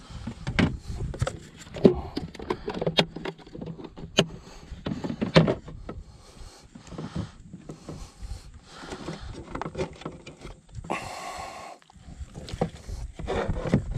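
Scattered taps and knocks from handling a bass and a plastic measuring board against a plastic fishing kayak, with a brief rustle a little after eleven seconds in.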